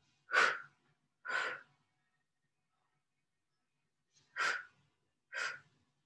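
A woman's audible breaths as she works through a Pilates point-and-flex leg exercise: four strong breaths in two pairs, about a second apart within each pair, with a gap of a couple of seconds between the pairs.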